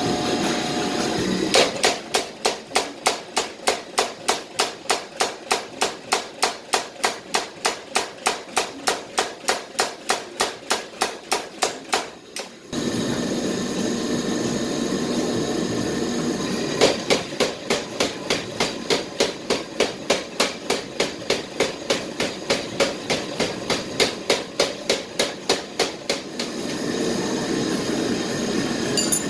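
Power hammer striking hot steel in two long runs of rapid, even blows, about four a second, with a pause between the runs. The hammer's machinery makes a steady running noise whenever it is not striking.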